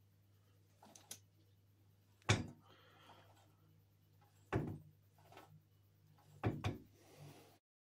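Metal clunks from the hand-operated starter-motor reverser unit being pushed down and let back on its pivot, tensioning and slackening its V-belt drive. The knocks come about two seconds apart, the last one doubled, over a faint steady low hum.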